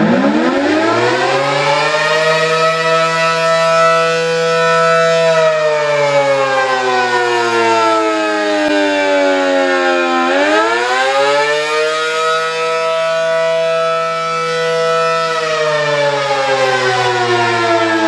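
ACA Allertor 125 outdoor warning siren sounding the wail (attack) signal. Its tone holds high, glides down about a third of the way in, climbs back up about halfway through, holds again, and begins to fall once more near the end.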